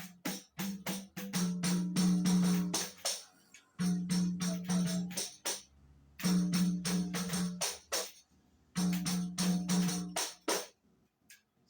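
Tamborim, the small Brazilian samba frame drum, struck rapidly with a stick in repeated samba phrases: four runs of quick strokes with short breaks between them.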